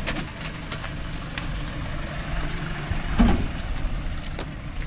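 A vehicle engine idling steadily, with scattered knocks and clunks and one louder thump about three seconds in.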